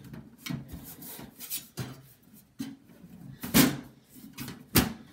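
Computer case side panel being fitted back onto the case: a run of irregular knocks and clatters with scraping between them, the loudest knocks about three and a half seconds in and again near the end.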